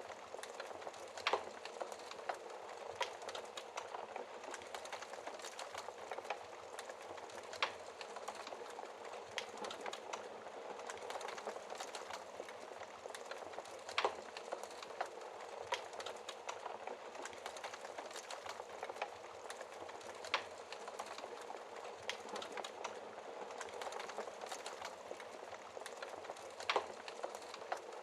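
Wood fire crackling in a fireplace: a dense, steady crackle with about five sharper, louder pops spaced roughly six seconds apart.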